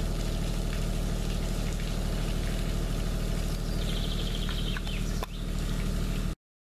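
Steady low mechanical drone, with a short high bird-like trill about four seconds in and a click just after five seconds. The sound cuts off abruptly near the end.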